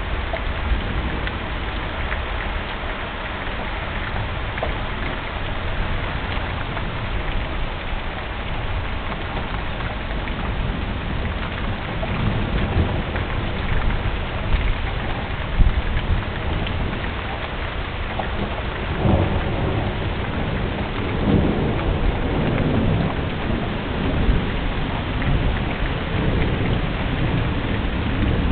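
Thunderstorm at night: steady rain falling throughout, with low thunder rumbling that swells in several rolls in the second half.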